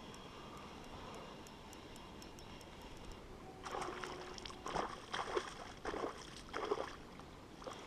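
Hooked fish splashing at the water's surface while being reeled in on a spinning rod: a run of irregular splashes starting about halfway through and lasting about three seconds. Before the splashing, only the faint, even ticking of the spinning reel being wound.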